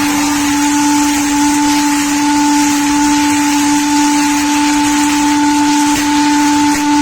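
Milling-sawing log machine running: a loud, steady whine from its spinning side cutters and circular saw blades, two unchanging tones over a hiss, with a fainter higher tone joining about two seconds in.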